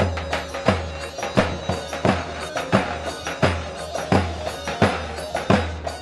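Davul, the large double-headed folk bass drum, beating a dance rhythm: a deep stroke about every 0.7 s with lighter strokes between, over a held melody line.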